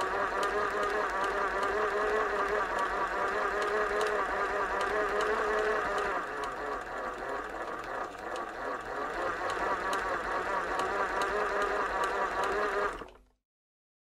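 Sewing machine running steadily, its needle mechanism giving a rapid even ticking over a constant motor hum. It eases slightly in the middle, then stops abruptly about a second before the end.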